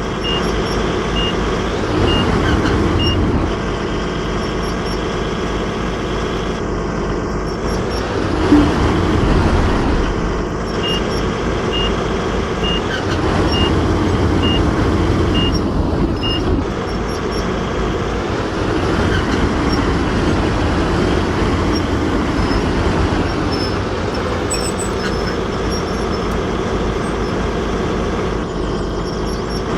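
Heavy construction vehicles' diesel engines running, with a reversing alarm beeping about three times every two seconds for a few seconds near the start and again in the middle.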